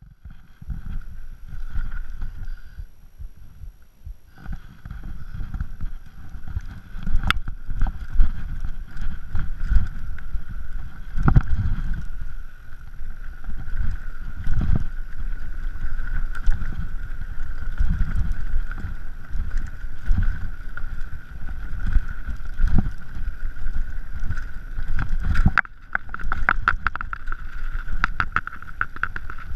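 Mountain bike ridden fast over rough dirt singletrack, heard from a chest-mounted camera: wind rumble on the microphone with repeated knocks and rattles from the bike, and a steady high buzz. It gets louder from about four seconds in.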